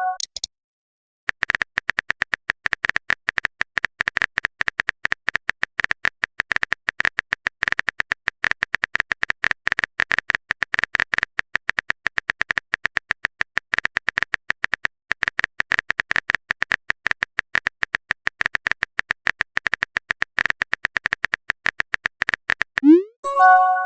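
Rapid, even keyboard-typing clicks, many per second, with a brief pause about fifteen seconds in. Near the end comes a short chat message-alert chime: a rising sweep followed by a few held tones.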